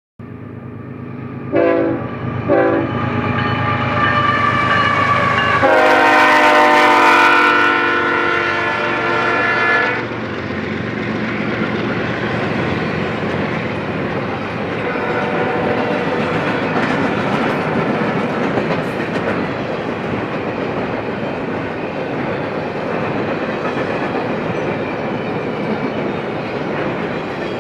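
Freight train diesel locomotive horn: two short blasts, then a long chord-like blast of several seconds over the low rumble of the locomotives passing. After that comes the steady rolling noise and wheel clatter of double-stack intermodal container cars going by on the rails.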